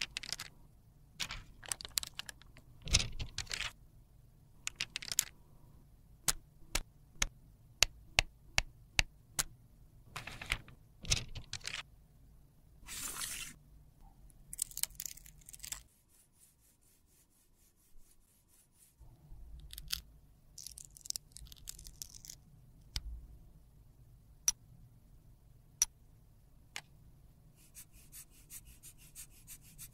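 Close-up handling sounds of makeup repair: baking paper rustling and tearing, a long run of sharp clicks and taps from tools and a small plastic eyeshadow compact, and softer scraping near the end as a spatula works over the pressed powder.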